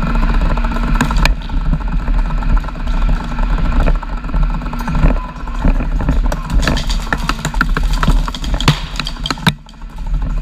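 Remote-operated airsoft UGV's drive running with a steady mechanical drone. A quick run of sharp clicks and knocks comes in about six and a half seconds in and stops about a second before the end.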